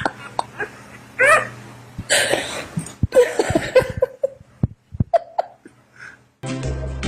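A pet dog's short, high-pitched yips, one about a second in, followed by rustling and a few clicks. Music begins near the end.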